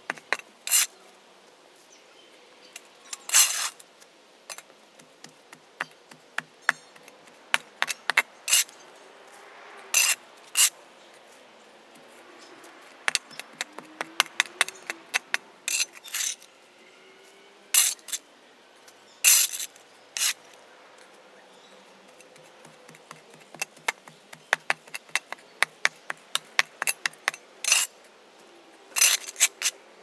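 Shovel blade scraping and knocking on an asphalt court as caked dirt and grass are pried up: many short clicks and scrapes, with several longer, louder scrapes every few seconds.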